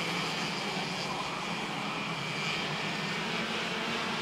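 Racing kart's two-stroke engine heard from the onboard camera at speed, its note held fairly steady, with a constant hiss of wind and wet-track spray over it.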